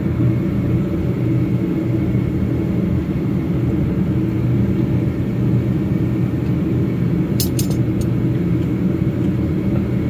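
A steady low engine rumble, like an engine idling, runs with no change throughout. A few light sharp clicks come about three quarters of the way through.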